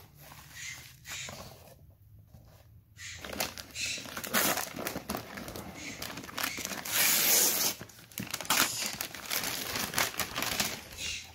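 Gift wrapping paper being torn and crumpled as a present is unwrapped, with cardboard box handling; only light rustling of packaging for the first three seconds, then steady tearing and crinkling, loudest about seven seconds in.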